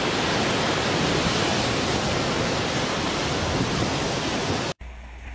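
Steady, dense rushing noise of ocean surf at a lava sea entry, where lava pours down a sea cliff into the waves. It cuts off abruptly near the end.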